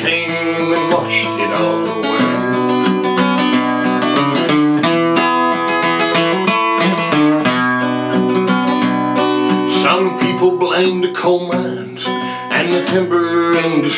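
Acoustic guitar music: strummed chords with ringing held notes.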